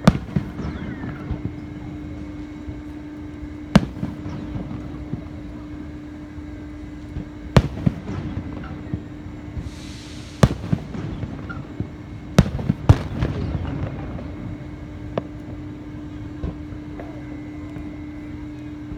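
Fireworks bursting, about seven sharp bangs at irregular intervals a few seconds apart, with smaller pops between them and a steady hum underneath.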